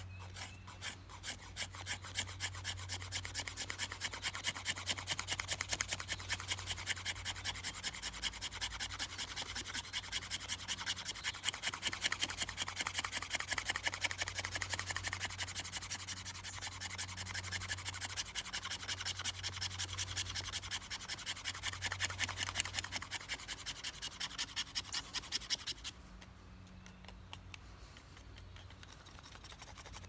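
Spine of a Victorinox Fieldmaster's wood-saw blade scraping a fatwood stick, rasping off fine resin-rich scrapings in rapid, even strokes, several a second. The scraping stops about 26 seconds in.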